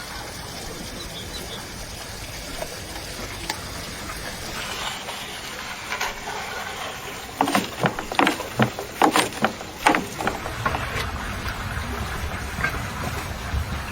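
A steady hiss of background noise, broken in the middle by a quick run of about ten sharp knocks over some three seconds.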